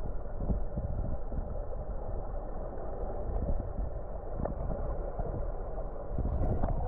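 Muffled underwater sound of river water in a rock pool: a steady low rush of moving water with small scattered clicks and knocks, dull and cut off in the highs as heard with the microphone submerged.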